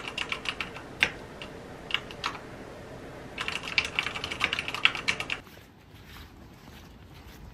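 Typing on a mechanical keyboard: a quick run of keystrokes, a few single key taps, then a faster burst of keystrokes that stops about five seconds in, followed by a much quieter stretch.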